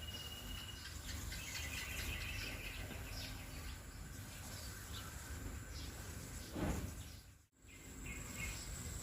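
Outdoor ambience of birds chirping over a steady background, with bees buzzing around flowers. A louder buzz swells briefly about two-thirds of the way in, as if a bee passes close. Just after it, the sound cuts out for a moment.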